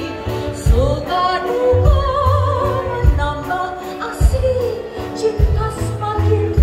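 A woman singing a held, wavering melody with vibrato over band music with a deep beat about once a second.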